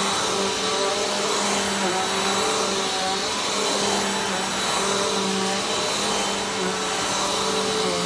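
Vacuum cleaner running as it is pushed back and forth over carpet: a steady drone with a high whine, its low hum wavering briefly every second or two.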